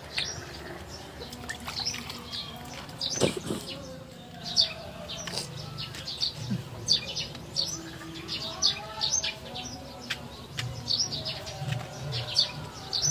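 Small birds chirping repeatedly, short high chirps coming about once or twice a second.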